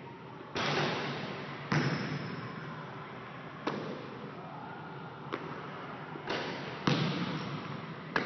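A basketball thudding on a hardwood gym floor, about seven irregular bounces and knocks, each ringing on in the hall's echo.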